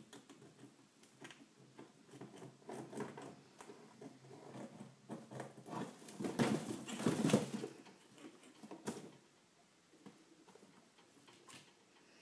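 Two chinchillas scuffling and scrabbling in wood-shavings bedding and hay as they fight over the hay: a run of quick scratchy rustles and patters, loudest in a busy flurry about six to eight seconds in, then a sharp click and a few scattered scratches.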